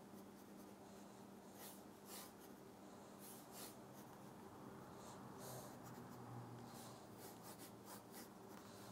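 Graphite pencil sketching on paper: a series of short, faint scratching strokes over a steady low hum.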